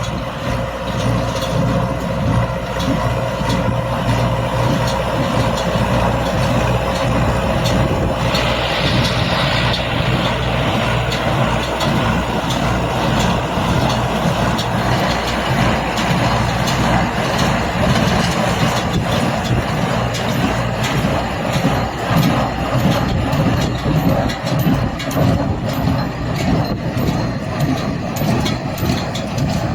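A small square baler running, driven by a tractor: steady engine hum under continuous machinery clatter, with a brief hiss about eight seconds in.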